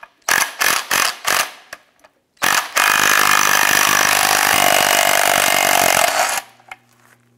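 Cordless impact wrench with a 15/16-inch socket loosening the nut on a control arm shaft: a few short trigger bursts, then about four seconds of continuous hammering that stops abruptly near the end.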